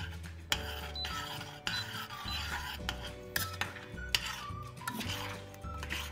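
A metal spoon stirring strawberries and cornstarch slurry in a stainless steel saucepan, scraping and knocking against the pan several times, over background music.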